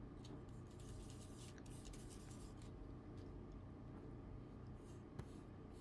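Faint, irregular scratchy strokes of a paintbrush dabbing and scrubbing acrylic paint onto the painting surface, over a low steady hum.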